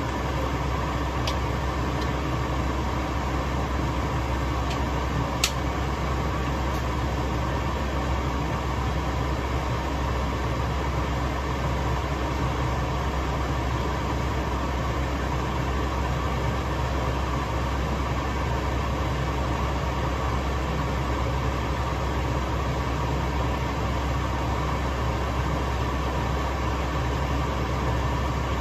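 Steady rumbling hum and hiss from a gas stove under a simmering pot of kimchi stew, with a single sharp click about five seconds in.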